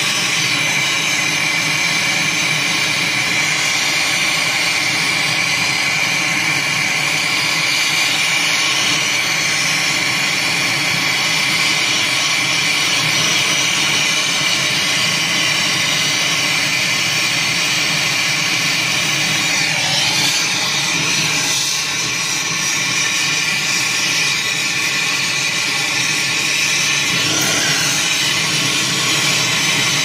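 Brazing torch flame hissing steadily as it heats a copper refrigerant line joint on an air-conditioning condenser, with a slight drop about two-thirds of the way through.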